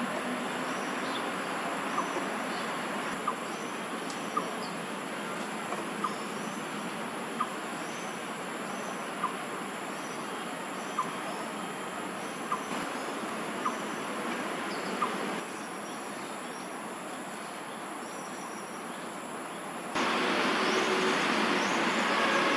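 City park ambience: a steady rumble of distant traffic under a continuous high insect drone, with faint short bird chirps and a sharp tick about every one to two seconds. The background gets louder suddenly near the end.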